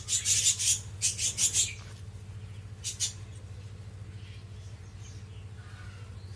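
Small cage birds chirping in quick high bursts through the first second and a half and once more about three seconds in, over a steady low hum.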